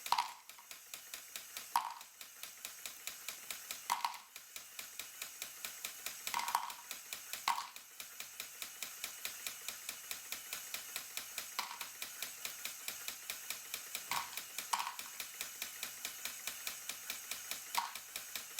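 Plastic LEGO Technic sorting mechanism running, driven by a single Powered Up motor: a quick, steady rhythm of light plastic clicks as the hopper's bars shake the round bricks, with louder clacks every second or few.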